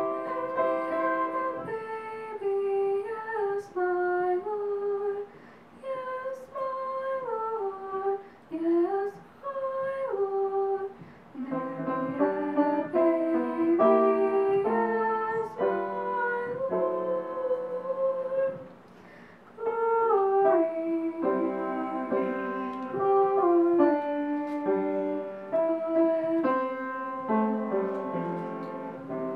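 A woman singing a song with piano accompaniment, in phrases with short breaks between them. The last phrase falls in pitch and fades near the end.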